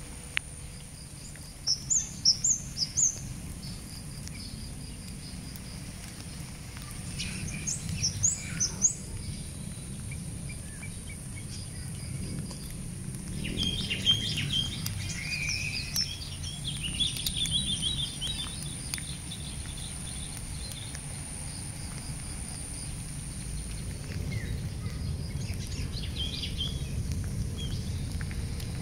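Wild birds chirping: a quick run of four high chirps about two seconds in, another short run later, and a longer, busier stretch of calls in the middle, over a steady low rumble.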